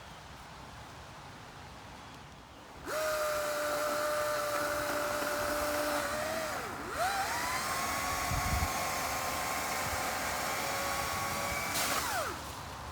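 Cordless electric chainsaw (STIHL MSA 200 C) cutting a tree limb: the motor whines up abruptly, sags briefly about halfway as it works, runs on at a higher pitch, then winds down near the end. A low thump comes partway through.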